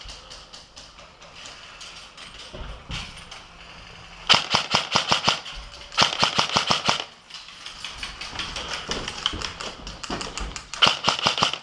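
Airsoft electric rifles firing full-auto: three loud rapid bursts of about a second each, around four seconds in, six seconds in and near the end, with fainter bursts of fire rattling in between.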